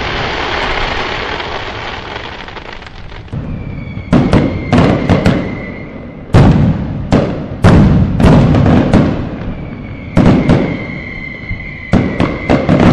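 Fireworks: a dense hissing crackle for the first few seconds, then from about four seconds in a run of loud, sharp bangs in quick clusters. A thin, steady high whistle sounds on and off beneath the bangs.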